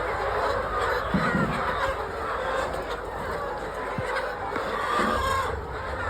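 A flock of chickens at feeding time, many calling and clucking at once in a steady din, with a few short low knocks.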